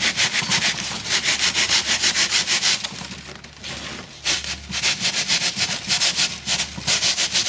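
A loose bandsaw blade, worked by hand, sawing through a block of cured two-part polyurethane foam in quick back-and-forth strokes, about five or six a second. The strokes pause for about a second a little after the middle, then resume.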